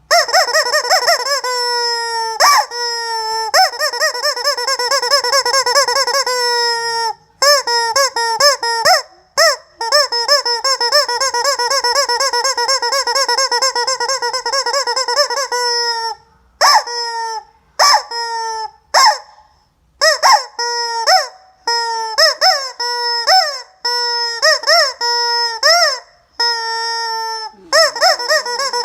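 Rubber squeeze-toy chicken squawking as it is squeezed. Long, drawn-out wavering honks in the first half, then a run of short, quick squawks with brief gaps.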